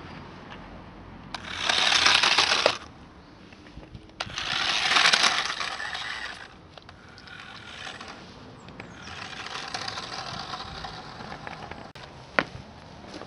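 Cheap battery-powered RC toy truck driving in short spurts: its small electric motor and gears whir loudly for about a second and a half, then again for about two seconds, and run more quietly later on. A single sharp click comes near the end.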